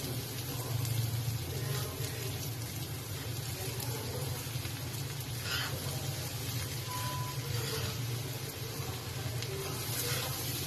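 Pot of boiled basmati rice in ghee with sugar just stirred in, cooking on the stove with a steady sizzling, bubbling sound as the sugar melts, and a few faint light knocks now and then.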